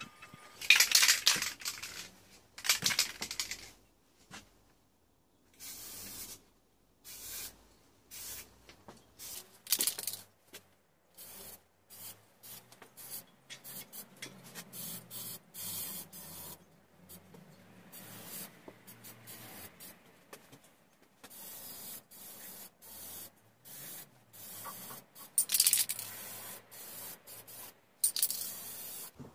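Aerosol spray-paint can spraying a steel frame in many short hissing bursts, with brief pauses between them.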